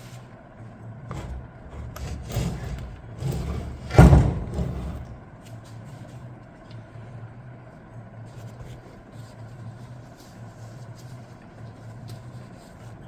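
Bell housing of an Allison 1000 transmission being worked loose from the case: a few seconds of metal knocks and scraping, with one heavy thump about four seconds in. A steady low hum continues underneath.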